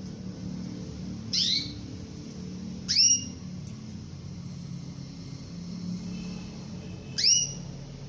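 Female domestic canary calling for a male: three short upswept call notes, about a second and a half in, at three seconds and near the end, over a low steady hum.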